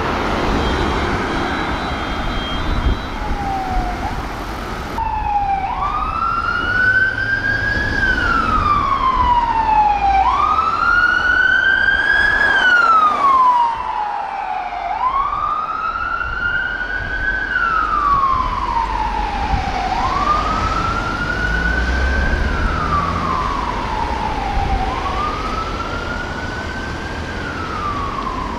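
Electronic police siren of a BMW X5 armed response vehicle on a slow wail. Each sweep rises for about two seconds and falls for about two and a half, repeating about every five seconds over traffic noise. In the first few seconds, before a cut, another siren's shorter falling tones are heard more faintly.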